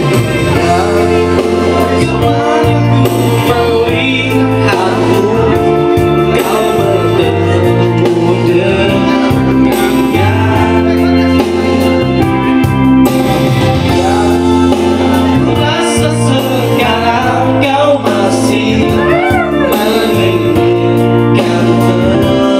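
Singing into a microphone over amplified electronic keyboard accompaniment, loud and steady.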